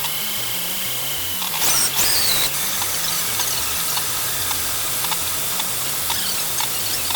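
FLSUN T1 Pro delta 3D printer printing at high speed: its stepper motors whine, jumping quickly from pitch to pitch with each move, with a high whine sweeping downward about two seconds in.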